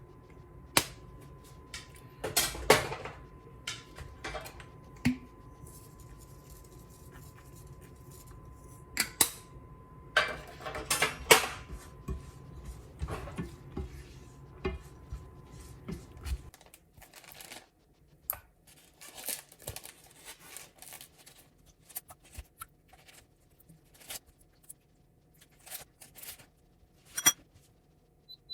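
Kitchen dishes and utensils clinking and knocking in scattered, irregular strikes, busiest in the first half, over a low steady hum that stops about halfway through.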